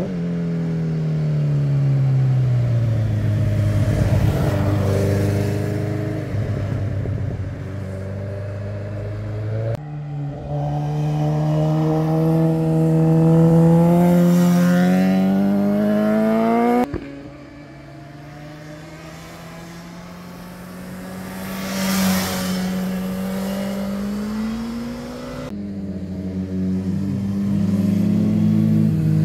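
Sport motorcycles riding one after another through a mountain hairpin bend. Each engine's pitch rises as the rider accelerates out of the curve and swells as the bike passes close by. The engine sound changes abruptly three times as one bike's clip gives way to the next.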